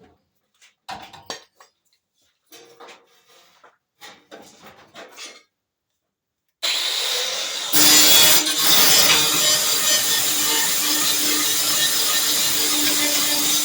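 A few short scrapes and knocks of metal being handled, then about six and a half seconds in a power grinder starts up and runs steadily against sheet metal with a constant motor whine, cleaning the rusty quarter panel down to bare metal for welding.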